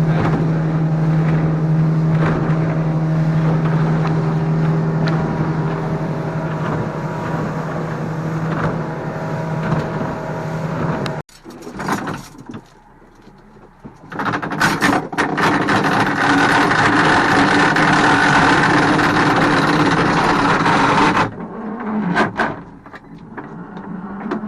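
Fishing boat's engine running steadily under way. After an abrupt break about halfway through comes a louder rush of wind and water over the engine, which cuts off near the end.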